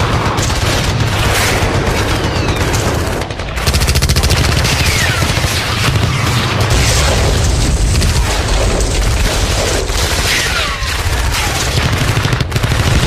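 Battle sound effect: dense rifle and machine-gun fire with explosions, and a few falling whistles over it.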